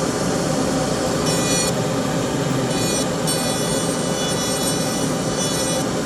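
Steady loud rushing noise from dental lab machinery, with a high whine that cuts in and out several times.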